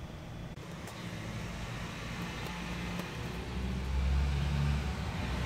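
A motor vehicle's engine running nearby, a low rumble that grows louder about three and a half seconds in and eases again near the end, with a few faint clicks.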